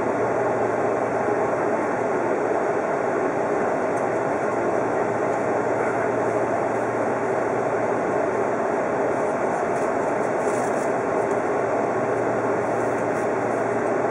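Steady hum and hiss inside an Odakyu Romancecar VSE standing still at a station platform. The train's equipment or ventilation is running, with no running or wheel sounds.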